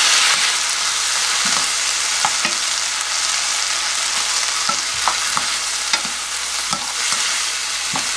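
Sliced onions sizzling in oil in a nonstick frying pan, just after soy sauce has been added, with a steady hiss that eases a little over the first seconds. A wooden spatula stirs them, scraping and tapping against the pan at irregular moments.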